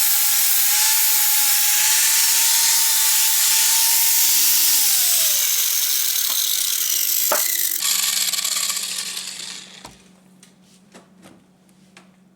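Electric drill spinning a 120-grit sanding disc against a rusty metal door hinge, with a steady motor pitch and a loud gritty hiss. About five seconds in the motor winds down, the sanding noise fades out near ten seconds, and a few light clicks follow.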